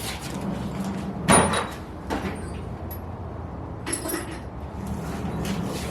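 Cordless drill running in short bursts while enlarging mounting holes for a wickerbill in a car's rear spoiler, with several sharp knocks, the loudest about a second in.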